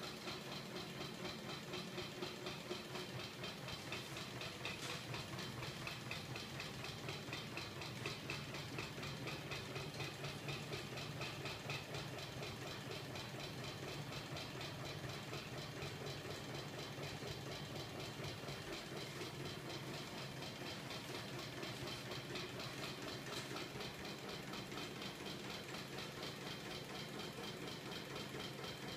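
Homemade magnetic crank engine running steadily, its small 24 V electric motor spinning the crankshaft and flywheel discs. It makes a fast, even mechanical rattle over a steady low hum.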